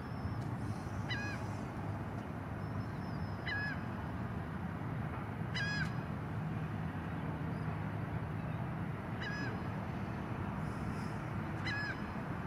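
Osprey giving short, high whistled calls, five of them spaced a few seconds apart, over a steady low rumble.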